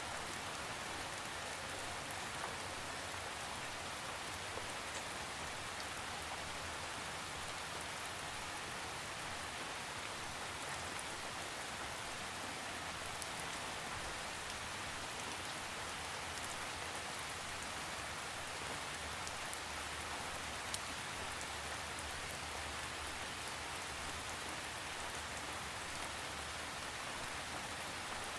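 Steady rain falling, an even hiss with scattered drops ticking on a surface, no thunder.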